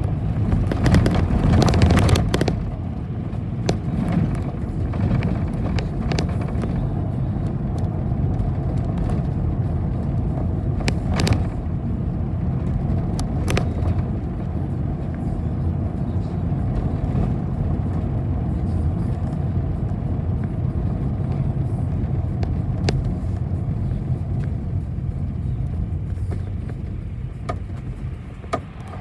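City bus running along the street, heard from inside the cabin: a steady engine and road rumble with scattered rattles and knocks. It grows quieter near the end.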